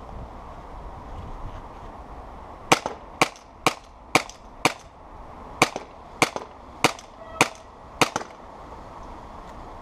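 Tokyo Marui Glock 17 gas blowback airsoft pistol firing about ten sharp shots, roughly two a second, in two strings with a short pause between them.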